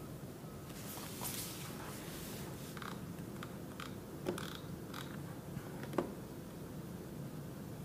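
Scattered small clicks and a brief rustle from someone working at a computer desk, over a steady low room hum. The two sharpest clicks come a little past the middle.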